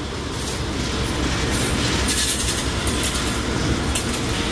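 Freight train's diesel locomotives, the EMD SD40s trailing three GE Dash 9s, passing close by with their engines running, a steady low rumble with wheels clicking over the rail joints.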